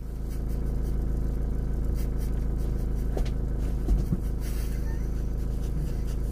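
Vehicle engine idling inside the van's cab: a steady, even low hum.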